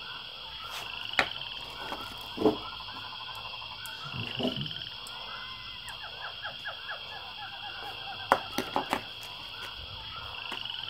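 Items being handled on a sale table, a metal battery clamp and plastic bags knocking and clattering: a sharp click about a second in, a heavier knock at about two and a half seconds, and a cluster of clicks near the end. Behind them a steady, high-pitched chorus of chirps and trills.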